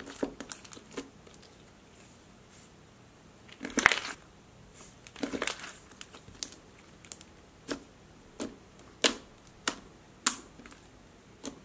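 Java chip slime with black foam chunks being pressed and kneaded by hand, giving sharp, irregular clicks, about one a second, the loudest about four seconds in.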